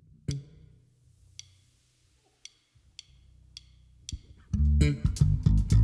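Electric bass guitar opening a latin jazz tune. A low sustained note is struck sharply at the start, and a few isolated sharp clicks sound over it. About four and a half seconds in, a loud, fast, percussive bass line kicks in.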